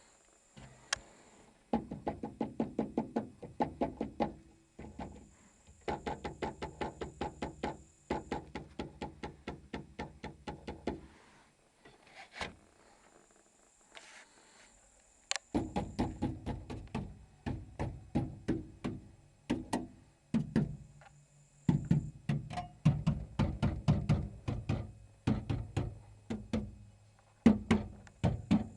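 Lada Granta's rear seat belt retractors on the rear parcel shelf knocking and rattling, fast sharp knocks about five a second in long bursts with short pauses. This is a known cabin rattle of the car.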